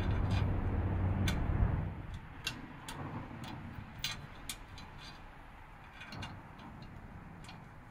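Scattered light clicks and taps from a motorcycle skid plate and its mounting screws being handled and positioned under the engine. A low rumble fills the first couple of seconds and then stops abruptly.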